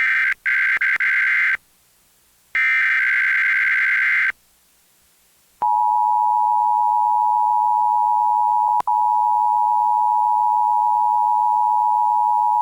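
Emergency Alert System Required Monthly Test: buzzy bursts of SAME digital header data, then, about five and a half seconds in, the steady two-tone EAS attention signal, which holds with a brief dropout near the middle. The audio is played back from a VHS recording of a TV broadcast.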